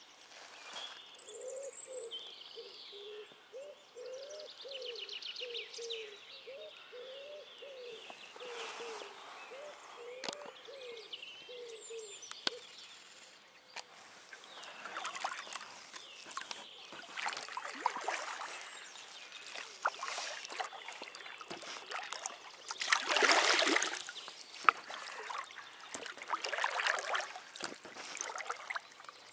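Birds calling and chirping for the first dozen seconds, then kayak paddle strokes splashing and dripping in the river water, the loudest a few seconds before the end.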